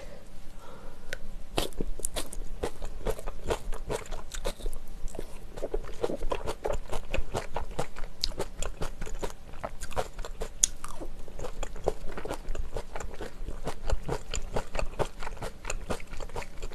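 A person chewing mouthfuls of mala xiang guo, a spicy stir-fry of scallops and glass noodles, close to the microphone: many quick, wet mouth clicks all the way through.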